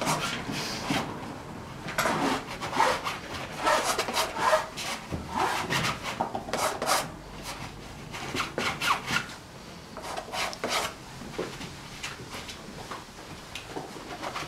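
Palette knife scraping and dabbing oil paint onto a stretched canvas in many short, irregular strokes.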